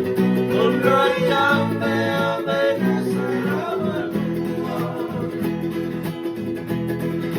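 Fijian sigidrigi string-band music: strummed acoustic guitar and ukulele keeping a steady rhythm, with a voice singing a phrase about a second in.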